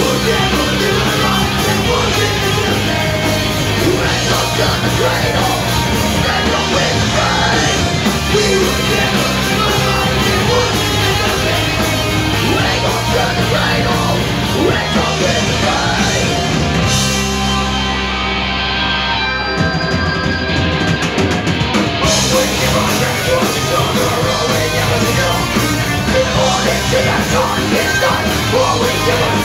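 Punk rock band playing live: loud guitars, bass and drums with shouted vocals. About seventeen seconds in, the cymbals drop out for a few seconds over held chords, and the full band comes crashing back in a few seconds later.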